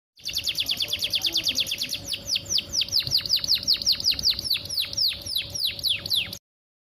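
Domestic canary singing: a rapid trill of short high notes, then a slower run of downward-sweeping whistles, breaking off suddenly near the end.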